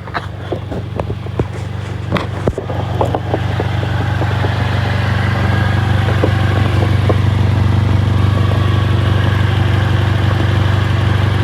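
2006 Honda Accord 2.4-litre four-cylinder engine idling steadily with an exhaust leak at a metal rod welded onto the exhaust to protect the catalytic converter. A few sharp knocks and clatters come in the first three seconds. The exhaust sound grows louder about three seconds in and then holds steady.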